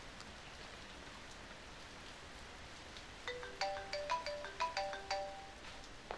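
Mobile phone ringtone: a quick melody of short, bright notes that starts about three seconds in, over a steady hiss of rain.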